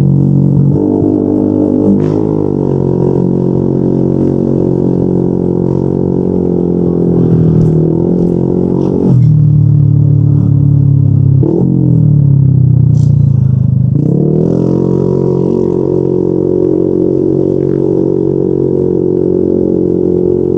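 Exhaust note of a Yamaha NMAX 155 scooter's single-cylinder engine through a Yoshimura RS2 aftermarket exhaust while riding, a deep steady drone. The throttle closes about nine seconds in, and the pitch sinks as the scooter slows around twelve to fourteen seconds, then rises again as it picks up speed.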